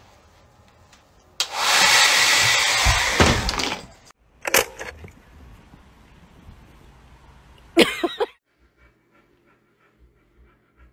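Handheld hair dryer blowing loudly and steadily for about two seconds, switching on and off abruptly. Later comes a single short, sharp sound, followed by near quiet.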